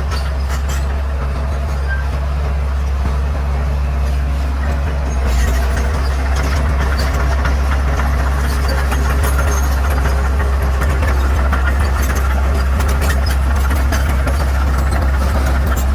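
Bulldozer's diesel engine running steadily under load. About five seconds in it gets louder and many sharp clicks and cracks join it, as the machine pushes through brush and dry wood.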